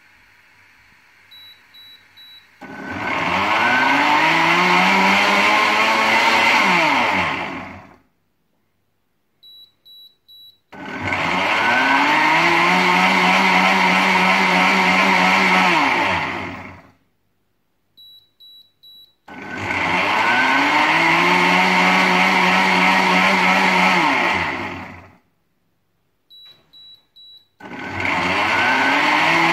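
Countertop blender on its self-cleaning program. Three short high beeps are followed by the motor spinning up with a rising pitch, churning the liquid in the jug for about five seconds, then winding down to a stop. The beep-and-run cycle repeats about every eight seconds, three times over, with a fourth run starting near the end.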